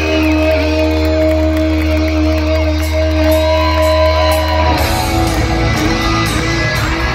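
Live hard-rock band through an arena PA, electric guitars holding chords over a steady low bass note. About two-thirds of the way in, the low end breaks into a choppy rhythm.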